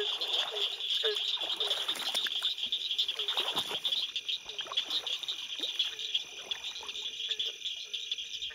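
Frog chorus of cricket frogs and barking tree frogs: a dense, fast high clicking trill over a low call repeated about twice a second. Rustling of grass and water about two to four seconds in.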